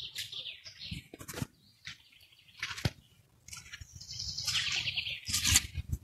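A nightingale singing in bursts of fast, high trills and warbled phrases, the longest trill held for over a second near the end. Several sharp knocks and a low rumble of handling noise run underneath.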